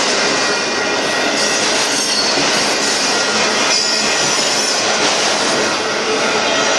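Union Pacific freight train's autorack cars rolling past, a loud steady rush of steel wheels on rail with thin high-pitched wheel squeal over it.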